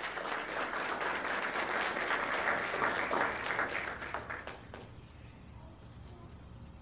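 Crowd applauding: many hands clapping at once, loudest two to three seconds in, then dying away at about five seconds.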